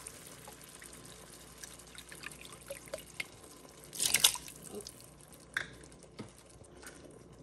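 Broth poured from a measuring cup into an enamelled Dutch oven of browned sausage and tomatoes: a short splashing pour about four seconds in, with small drips and ticks around it.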